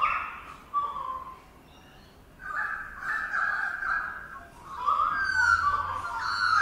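Bird calling in three bouts of rough, mid-pitched calls: a short one at the start, one about two and a half seconds in, and a longer one from about five seconds in.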